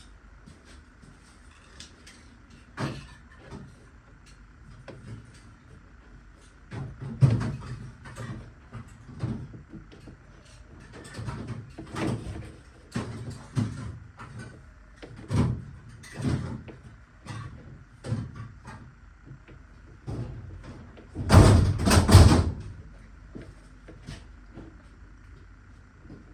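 Irregular knocks, taps and thumps of things being handled, about one a second. About 21 seconds in comes a louder double burst of clatter lasting about a second, and a faint steady high hum runs beneath.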